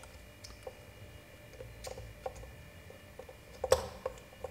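Scattered light clicks and taps as a metal baitcasting reel, a Shimano Calcutta Conquest 200DC, is turned over in the hands, with one sharper click near the end.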